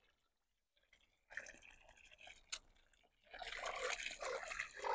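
Water pouring from a watering can and splashing into a puddled basin of soil, faint at first with a single click, then a steadier, louder splashing from about three seconds in.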